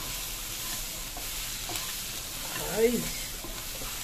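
Fried anchovies and onions sizzling in a non-stick kadai while a wooden spatula stirs and scrapes through them, with a few light taps against the pan. A brief pitched sound, like a short hum, comes near the end.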